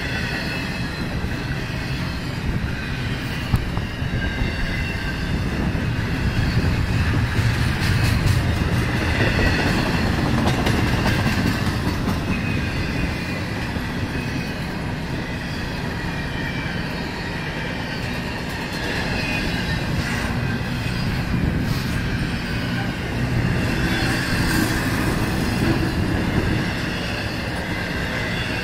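Double-stack intermodal freight train rolling past: a steady rumble of wheels on the rails, with a thin high wheel squeal that swells and fades over it.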